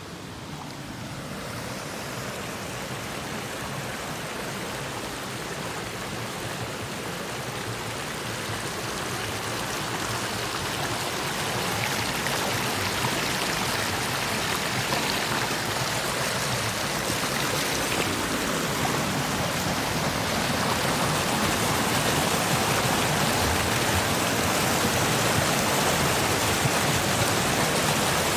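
Flowing water of a shallow river, a steady rushing hiss that grows gradually louder over the first dozen seconds and then holds.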